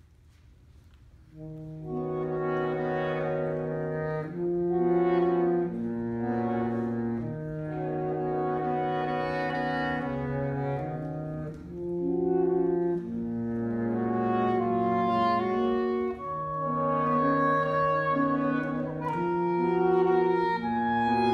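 Saxophone quartet of soprano, alto, tenor and baritone saxophones playing held chords that change every second or two over a low baritone line, coming in about two seconds in after a quiet moment.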